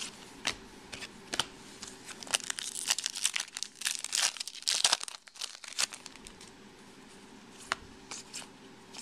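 Foil wrapper of a Topps Chrome baseball card pack being torn open and crinkled, densest from about two to six seconds in. A few sharp ticks come before and after.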